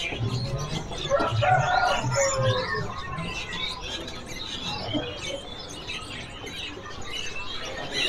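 Many caged birds chirping at once, a busy mix of short high calls from a market's stock of songbirds.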